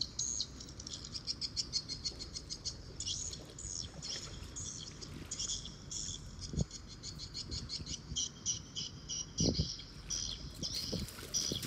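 Small birds chirping in quick, repeated runs of short high notes, with a few dull low thumps about halfway through and again near the end.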